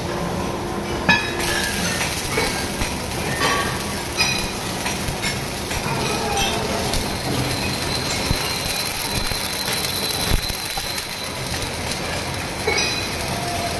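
Metal fabrication shop noise: a steady hiss under repeated sharp metal clanks and brief high ringing squeals.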